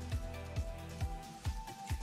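Background music with a steady beat, about two low drum hits a second, under held tones; the beat drops out briefly near the end.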